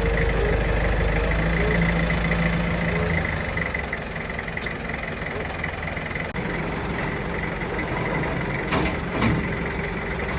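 Vehicle engine idling steadily, with a couple of sharp knocks near the end.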